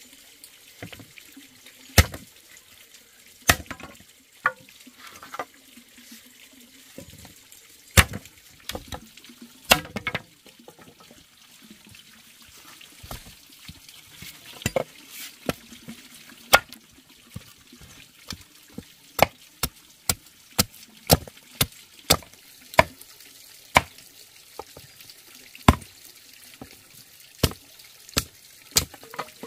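A machete chopping thin wooden sticks against a wooden block to cut points on them: single sharp chops, a few scattered at first, then a quicker run of about two a second in the second half.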